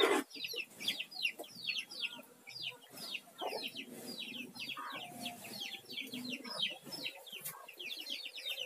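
Chicks peeping: a steady run of short, high, falling peeps, about four or five a second.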